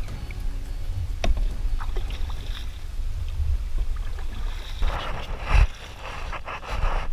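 Kayak paddling: paddle blades dipping and splashing in calm water over a low rumble of wind on the microphone, with a louder splash about five seconds in.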